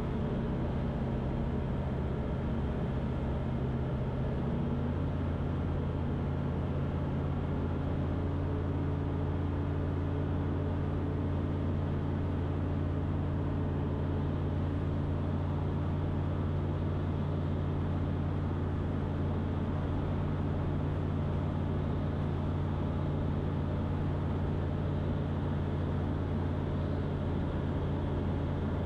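A Van's RV-12's Rotax 912 four-cylinder engine and propeller droning steadily in flight, heard inside the cockpit. The engine note shifts slightly about five seconds in, then holds steady.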